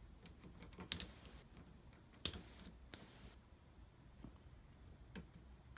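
Lock pick and tension wrench working in a Medeco Keymark SFIC lock cylinder: scattered small metallic clicks and brief scrapes, the loudest click about two seconds in.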